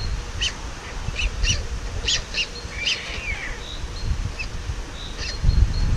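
Small songbirds chirping around the nest: a scatter of short, high calls, a few of them in quick pairs, over a low rumble of wind on the microphone.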